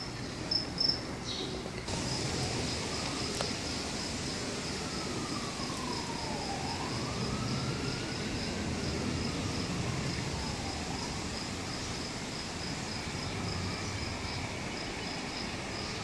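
A distant siren wailing in slow falls and rises, over a steady, rapid high-pitched chirping and a low rumble of the approaching subway train.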